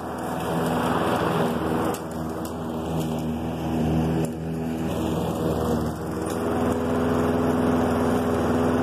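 Single-cylinder Briggs & Stratton 675EX engine of a Husqvarna LC 153S walk-behind lawn mower running at a steady speed while the mower is pushed over the grass, its loudness rising and dipping a few times.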